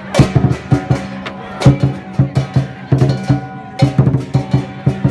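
Lion dance percussion: a large drum beaten in quick clusters of strokes together with cymbals, over a steady low ringing.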